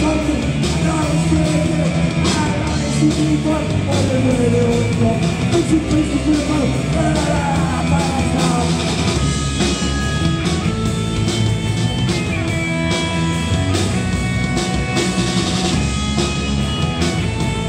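Anarcho-punk band playing live: shouted vocals over distorted electric guitars, bass and drums. The singing stops about halfway through while the instruments keep playing, with sustained notes and steady drum hits.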